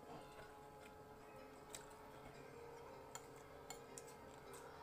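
Near silence with a few faint clinks of an eating utensil against a glass plate.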